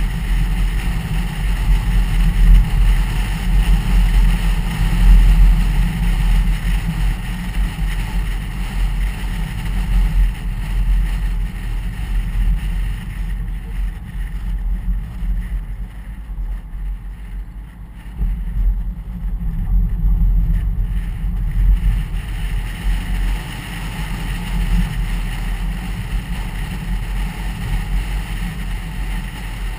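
A car driving on a country road: a steady low rumble of tyres and engine with wind noise. It gets quieter for several seconds in the middle as the car slows through a bend, then builds up again.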